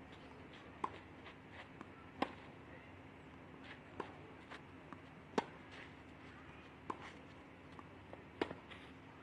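Tennis balls struck by racquets in a baseline rally: six sharp pocks about a second and a half apart, every other one, from the nearer player, louder. A faint steady hum runs underneath.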